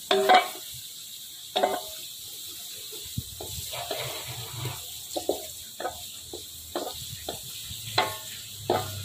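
Sliced lemongrass and ginger frying in hot oil in a wok: a steady low sizzle, broken by short scrapes and knocks of a wooden spatula stirring against the pan.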